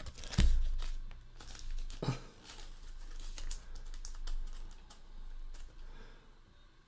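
A trading card being handled in a clear plastic card holder: a soft knock about half a second in, then a run of light plastic clicks and rustles.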